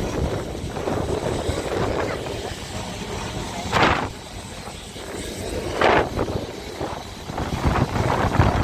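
Ride noise aboard an open-topped Boat class tram: the tram running along with rumble from the running gear and wind buffeting the microphone. There are two louder swells, about four and six seconds in.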